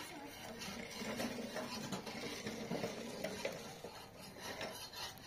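Small wood cooking fire crackling faintly under a metal bread griddle, with light scattered clicks and taps.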